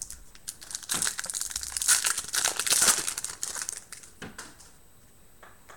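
Crinkly foil trading-card pack wrapper being torn open and crumpled by hand. The crackling is loudest between about one and three seconds in, followed by a few light taps and clicks as the cards are handled.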